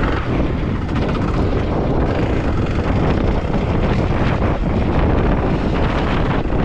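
Kawasaki KLX300's single-cylinder four-stroke engine running steadily under way, mixed with wind buffeting on the microphone.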